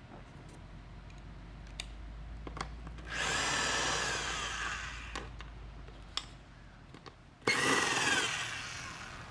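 Power drill-driver running twice, first for about two seconds and then for about a second and a half, each run trailing off, with small metal clicks in between: bolts holding the recliner's footrest being backed out of the reclining mechanism.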